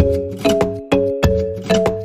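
Background music with a steady beat of struck, chiming chords, about two a second.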